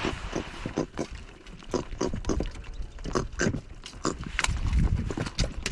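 Freshly landed grunter fish (gerut) giving a run of short, irregular grunts, several a second.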